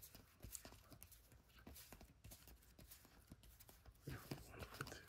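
Faint, irregular ticks and slides of trading cards being passed one at a time from one stack to the other, several a second.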